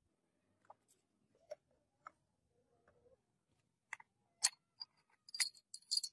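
Light clicks and clinks of small hard objects being handled, a few spaced taps at first, then a quick cluster of sharper clinks in the last two seconds.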